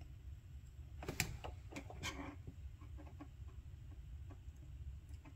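A few light clicks and taps from handling the soldering iron and solder wire at a wire splice in a helping-hands stand, clustered about one to two and a half seconds in, with fainter ticks after, over a faint low hum.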